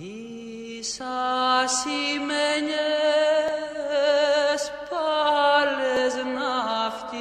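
Slow chanted vocal music: a single voice sings long held, ornamented notes with a wavering vibrato, over a steady low drone note.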